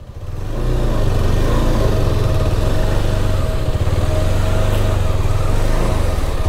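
KTM 390 Adventure's single-cylinder engine running as the motorcycle rides, building up over the first second, then holding steady.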